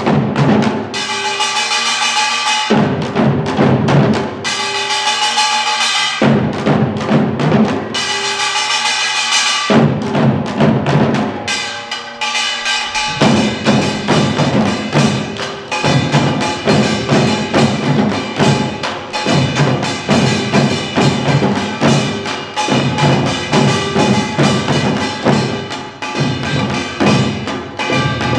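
Korean drum ensemble of janggu hourglass drums and buk barrel drums struck together in a fast rhythm, with a steady ringing over the beats. At first it plays short phrases with brief stops between them, and from about halfway it plays without a break.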